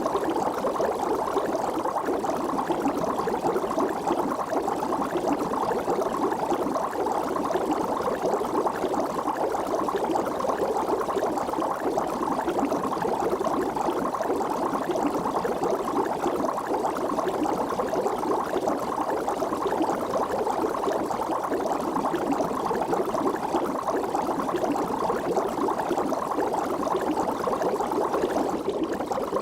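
Water bubbling steadily: a dense, unbroken stream of small bubbles popping at the surface.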